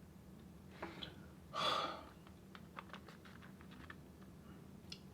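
Faint close-up eating and food-handling noises: a short breathy rustle about a second and a half in, then a run of light, irregular clicks and taps.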